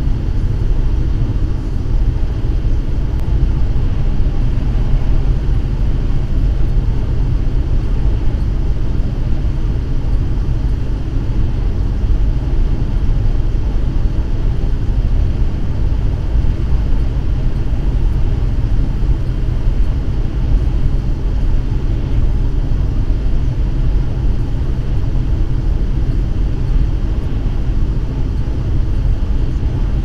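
Steady low rumble of a vehicle cruising on the highway, engine and road noise heard from inside the cab.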